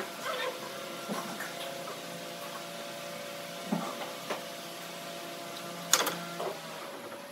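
Pine boards handled and set down on pipe clamps, giving a few light wooden knocks and one sharper knock about six seconds in, over a steady machine-like hum.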